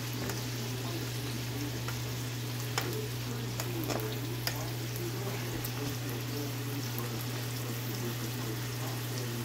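Peas and carrots sizzling in a little oil in a wok as freshly cooked basmati rice is tipped in from a rice-cooker pot, with a few light knocks. A steady low hum runs underneath.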